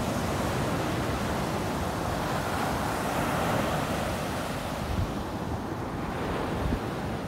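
Ocean surf breaking and washing up a sandy beach, with a steady rush that swells about halfway through. Wind rumbles on the microphone, with a couple of low buffets near the end.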